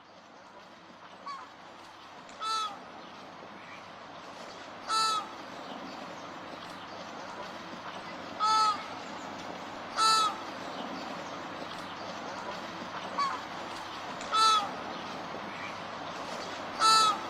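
Goose honking: about eight short, single honks spaced a second or more apart, some fainter than others, over a steady background hiss that slowly grows louder.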